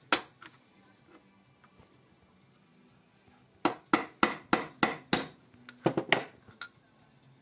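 Hammer blows on a steel punch, peening a loose pin (a small axle) on a metal part clamped in a bench vise to take the play out of it. One blow just after the start, then a quick run of about six blows, about three a second, and three more near the end.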